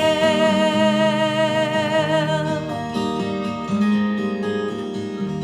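Folk song accompanied by acoustic guitar: a woman's voice holds a long sung note with vibrato, ending a little over halfway through, while the guitar plays on alone.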